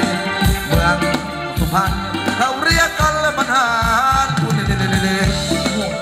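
Live Thai ramwong dance music from a band: a steady drum beat about twice a second with a shaker, under a wavering, vibrato-laden melody line.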